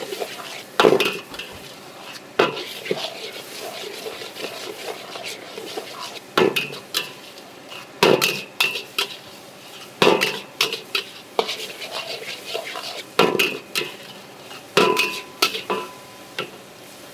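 A metal wok spatula scrapes and clangs against a large steel wok as noodles are stir-fried, over a steady sizzle. Loud clangs come a few seconds apart, about seven in all, with lighter scraping between them.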